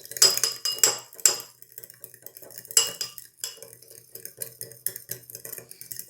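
A utensil scraping and clinking against a mixing bowl as seasoned chopped potatoes and vegetables are tossed together. A few sharper knocks come in the first second and a half and again near three seconds in, then quicker, lighter strokes, about four a second.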